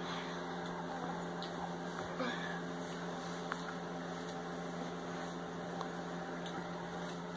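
Steady low mechanical hum with a few faint small clicks, as a baby handles a red teething chew stick.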